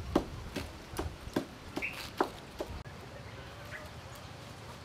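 Large kitchen knife cutting into a peeled pineapple, a row of crisp cuts about two and a half a second as grooves are carved to remove the eyes; the cutting stops about three seconds in.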